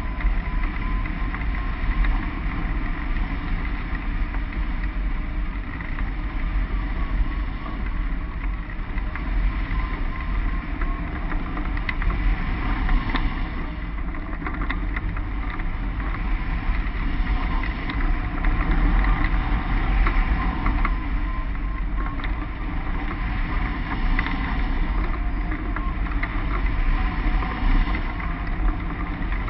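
Steady rush and low buffeting of wind over a hang glider's wing-mounted camera microphone in flight.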